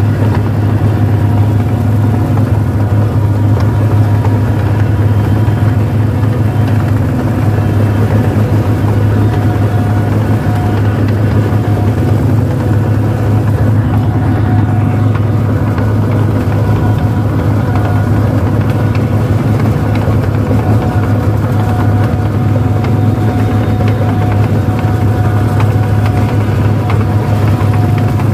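Rice combine harvester's diesel engine running steadily as the machine drives along, a deep drone with a constant whine above it.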